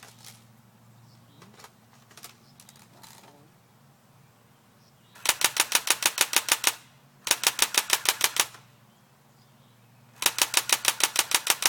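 Electric airsoft gun firing three bursts of rapid, even clicks, about seven a second, the middle burst a little shorter. The gun cycles but no BBs are coming out, which the shooter takes for a broken gun that is failing to feed.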